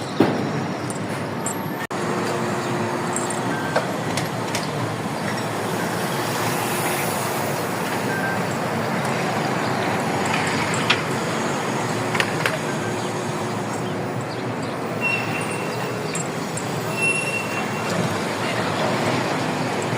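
Steady rumble of a running vehicle, with scattered clicks and two short high squeals past the middle.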